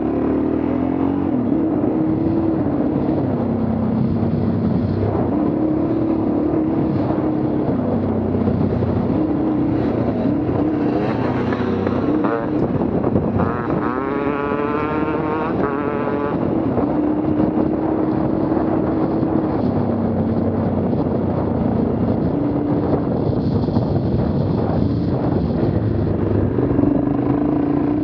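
Dual-sport motorcycle engine running under way on a dirt trail, its pitch stepping up and down with throttle and gear changes, with a run of rising revs about halfway through.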